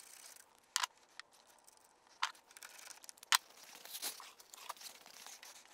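Faint, scattered clicks and rustles of hand tools and a power cable being handled at a car battery's positive terminal, with a short run of small ticks about four seconds in.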